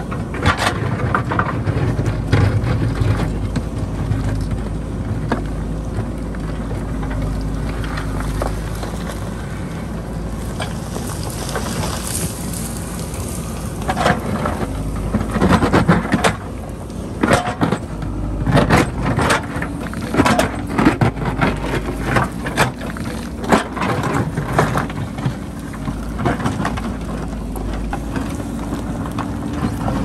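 JCB backhoe loader's diesel engine running steadily while its digging bucket scrapes and breaks through rocky ground, stones clattering and knocking against the steel bucket. The knocking and clatter come thick and fast in the second half.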